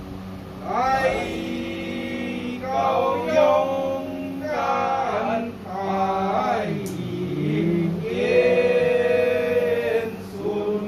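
Men's voices chanting together in a Chinese temple invocation, in long phrases that slide in pitch with short breaks between them.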